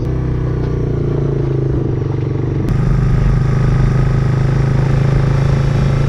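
Quad bike engine running steadily while being ridden, a constant low engine hum.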